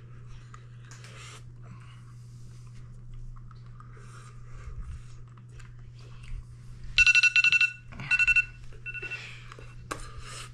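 iPhone timer alarm on its 'Radar' tone going off as the timer runs out: a loud, rapid beeping pattern in short bursts, starting about seven seconds in and stopped after about two and a half seconds. Before it, only faint handling noise.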